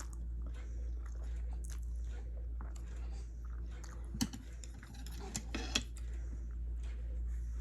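Close-miked chewing and mouth sounds of someone eating, with scattered small clicks and a few sharper smacks about four to six seconds in, over a steady low hum.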